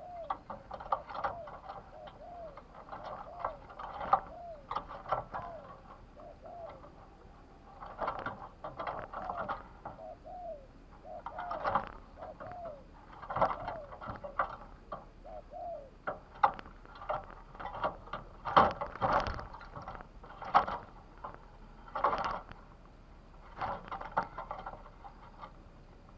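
Spotted dove cooing over and over in short, curved coos for the first two-thirds, among many sharp clicks and knocks, the loudest about nineteen seconds in.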